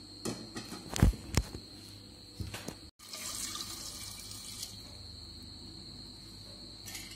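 Water poured from a bowl into a pressure cooker over chopped nutmeg rinds, splashing onto the pieces for a second or two about three seconds in. Before it, a few sharp knocks.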